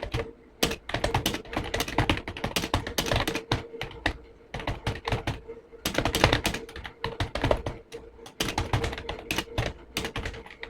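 Fast touch-typing on an old full-size computer keyboard with tall, stiff keys, each keystroke a loud clack, broken by short pauses about four and eight seconds in.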